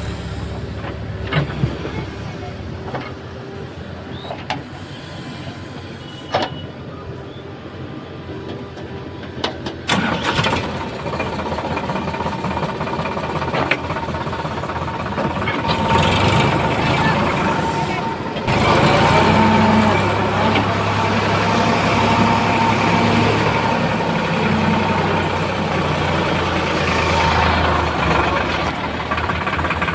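Heavy diesel engine running. For the first ten seconds it is quieter, with scattered clicks and knocks. It then grows louder and works harder, settling into a steady loud drone about two-thirds of the way through.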